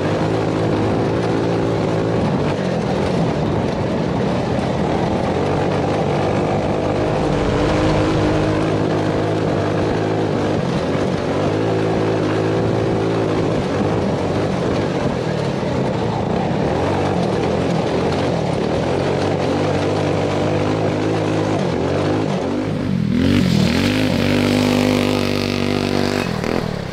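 Tillotson 225 single-cylinder go-kart engine, hard-used and with light headwork, running at high revs through a lap, its pitch rising and falling as the throttle is opened and lifted for corners. Near the end the sound turns brighter and noisier for a few seconds.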